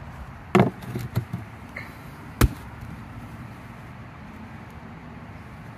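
Plastic lid being put on a buried 5-gallon plastic bucket: a few dull knocks, the loudest about half a second in, then a single sharp snap about two and a half seconds in.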